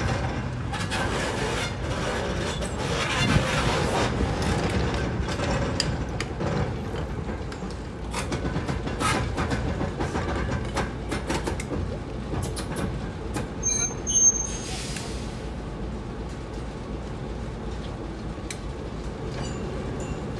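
Class 08 diesel shunter on the move, its English Electric six-cylinder diesel giving a steady low rumble, with scattered clicks and knocks from the train. About two-thirds of the way through comes a short high squeal, then a brief hiss.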